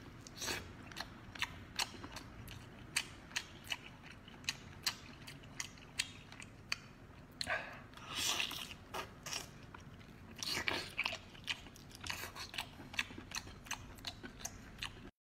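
Close-up mouth sounds of a man chewing braised octopus: many small wet clicks and smacks, with a couple of longer slurps as tentacles are sucked in, about eight and eleven seconds in.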